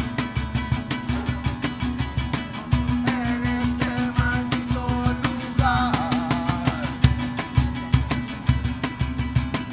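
Acoustic guitar strummed fast and hard over low cajón beats. A voice comes in with a short, held, wavering phrase about three seconds in and again about six seconds in.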